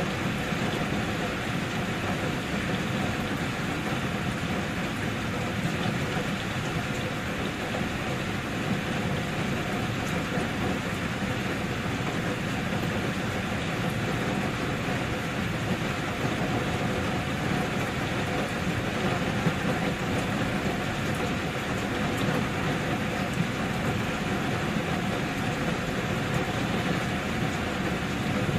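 Steady, unbroken rain with a faint steady hum underneath.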